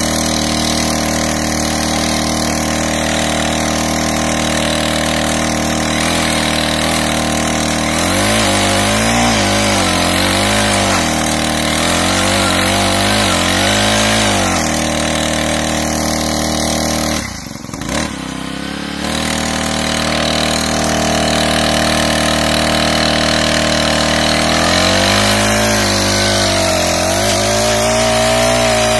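Backpack brush cutter's small engine driving a rotary tiller head through a flexible shaft as the tines dig soil. The engine runs steadily, its pitch wavering up and down in stretches. About two-thirds of the way through it drops back briefly, then picks up again.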